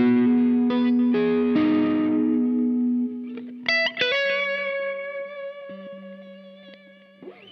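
Electric guitar played through the Caline Key West with its compressor and overdrive sides stacked, giving a mildly driven, sustaining lead tone. A few picked lead notes are followed by a couple of quick higher notes about three and a half seconds in. The final note is held long and slowly fades away.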